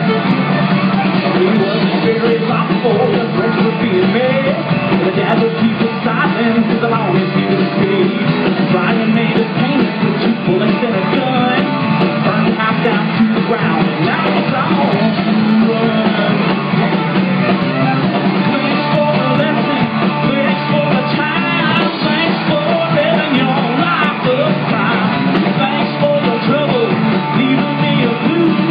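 Live country band playing amplified music, with fiddle, electric and acoustic guitars, bass and drums.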